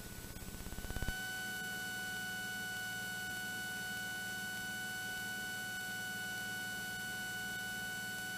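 A steady electronic tone with several overtones comes through the Cessna 182T's headset audio over the low, steady drone of the engine. About a second in it follows a run of rapid clicks that grow louder.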